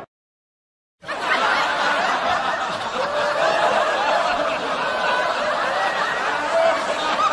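A crowd of people laughing, many voices overlapping, starting about a second in.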